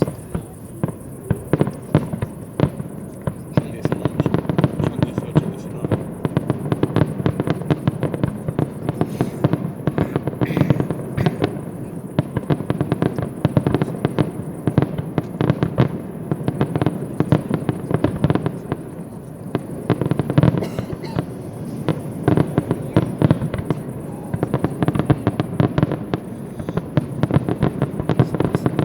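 Fireworks display: a dense, continuous run of rapid bangs and crackles, many per second, with louder single bangs standing out throughout.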